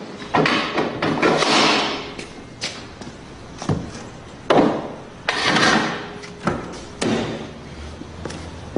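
A string of thumps, knocks and clunks a second or so apart, among them a car door being opened.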